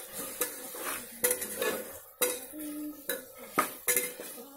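Metal ladle stirring chicken and tomato masala in a metal pressure cooker, scraping and clinking against the pot's sides with a sharp clink about once a second.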